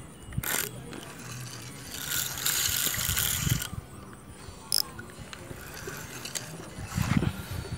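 Fishing reel clicking as line is worked in on a taut line, with a stretch of hiss about two seconds in that lasts over a second.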